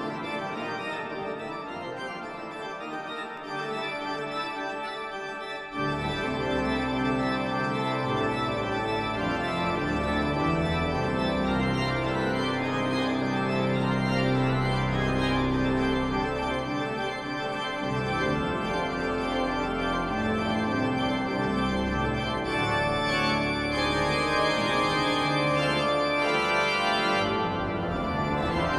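Marcussen pipe organ (three manuals and pedal, 56 stops) playing a toccata on manuals and pedals. About six seconds in, deep pedal bass notes enter and the sound gets louder; it grows brighter in the treble near the end.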